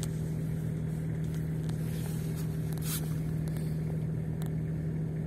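Off-road vehicle's engine running at a steady speed, with a constant hum and a faint click about three seconds in.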